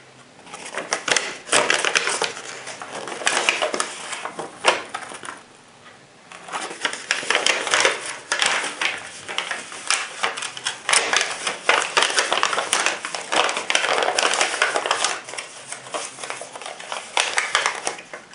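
Paper and plastic packaging being handled, crinkling and rustling in dense crackles, with a short lull about six seconds in.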